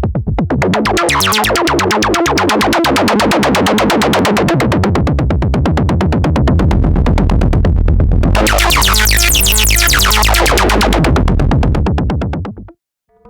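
Eurorack modular synthesizer patch played through a Steve's MS-22 MS-20-style filter: a harsh, rapidly pulsing electronic tone over a low drone. About eight seconds in it turns very bright, the filter sweeps up and back down, and then the sound cuts off abruptly near the end.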